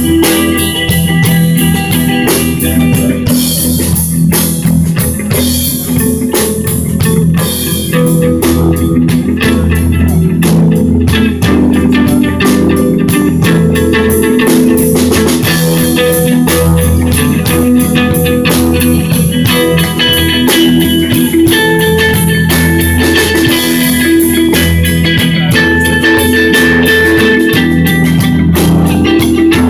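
Live instrumental psychedelic stoner rock from a band of electric guitars, bass and drum kit. Held, sustained guitar notes ring over a steady bass line and continuous drumming.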